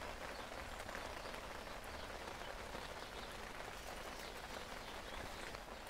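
Soft, steady rain falling outdoors, an even patter with no let-up.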